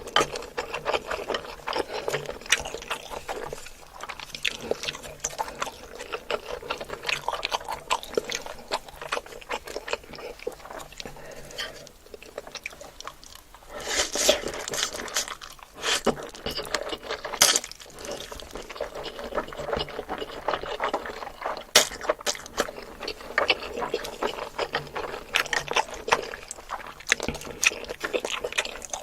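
Close-miked eating sounds: wet chewing and slurping, broken by many sharp clicks.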